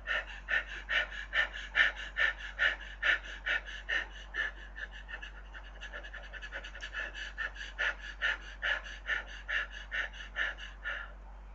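A woman panting on purpose, with short, shallow, rapid breaths at about four a second, as a breathing-exercise demonstration. The breaths grow softer for a few seconds in the middle and stop about eleven seconds in.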